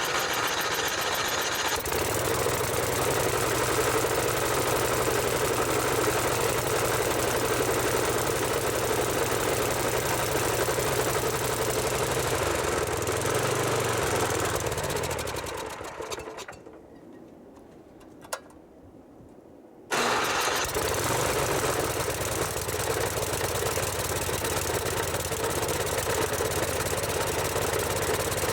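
Snow blower's small gasoline engine running steadily. About 13 seconds in, it slows and winds down to a stop, leaving a few quieter seconds with a single click. It is running again abruptly at about 20 seconds.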